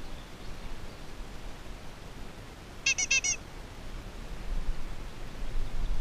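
A panda-figure toy horn on a mountain bike's handlebar sounding four quick, high squeaks about three seconds in.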